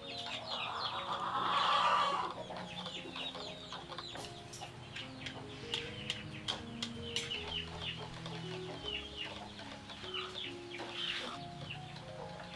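Chickens clucking with many short, high chirps. In the first two seconds, a wire whisk beats batter against a clay bowl, the loudest sound. Soft background music plays underneath.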